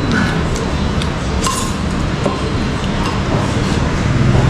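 Light clinks of tableware, bowls and utensils, over a steady low background rumble.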